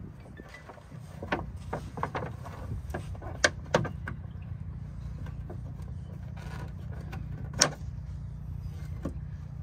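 Sharp clicks and taps as a magnetic window sunshade is handled and pressed onto the metal frame around a car's rear hatch glass, over a steady low hum. The loudest snaps come about three and a half seconds in, just after, and again near the end.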